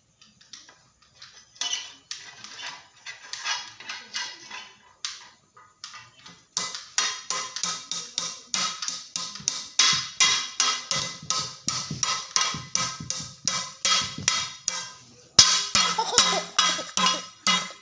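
A steady rhythm of sharp taps or knocks, about two to three a second, that starts faintly and becomes louder and busier partway through, with a brief pause near the end.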